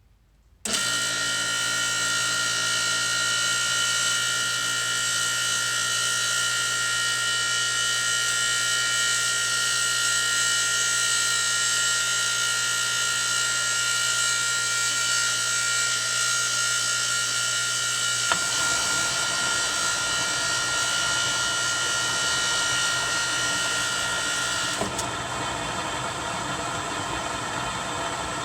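A 1 HP Red Lion water pump starts suddenly about half a second in and runs loudly, a steady whine of several high tones over a hum: the extreme, abnormal noise the pump has developed. The sound changes near the end, when the highest tones drop away.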